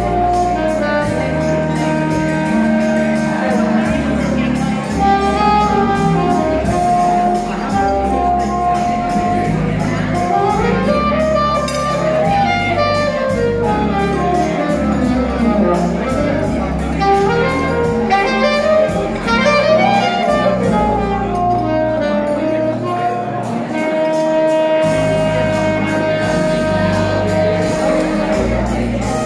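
Saxophone playing a jazzy melody live over a backing track with bass and a steady beat, with quick rising and falling runs about halfway through and a long held note near the end.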